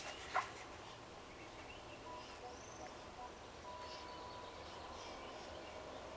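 Quiet room ambience with a few faint high chirps and a thin steady whistle-like tone in the middle. There is one sharp click just under half a second in.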